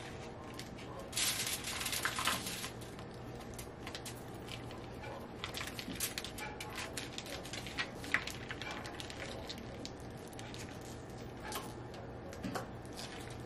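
Plastic food pouch crinkling and rustling as it is opened and handled, with a dense burst of crinkling about a second in. Scattered clicks and handling knocks follow, with a few more near the end.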